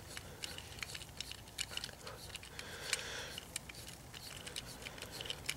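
A hand tap in a tap wrench being turned to chase the oiled threads of a Ludwig Speed King bass drum pedal's adjusting-screw hole: faint, scattered metal clicks and light scraping as the tap works through the tight thread.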